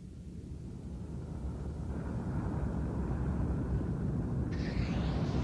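Rocket engine's low rumble, a sound effect for the moon rocket in flight, growing steadily louder, with a higher hiss joining near the end.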